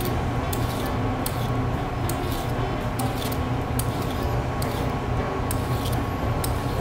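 Vegetable peeler scraping strips off a thick white asparagus spear held in the hand, one short stroke about every half second, over a steady low hum.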